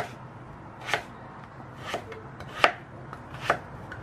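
Chef's knife chopping raw pumpkin into cubes on a plastic cutting board: about five sharp chops, roughly one a second, each blade strike knocking on the board.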